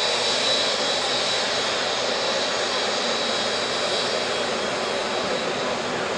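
Airbus A380-861 airliner's four Engine Alliance GP7200 turbofans running as it taxis past: steady jet noise with a thin, high, steady whine.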